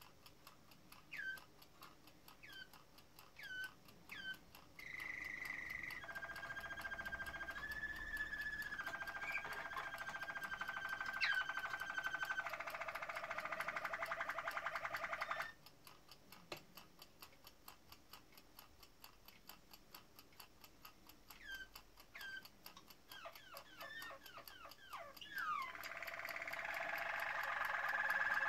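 Caged canaries singing: single short chirps at first, then from about five seconds in a continuous song of held whistled tones and rolling trills lasting about ten seconds, then chirps again until another song starts near the end. A fast steady ticking runs underneath.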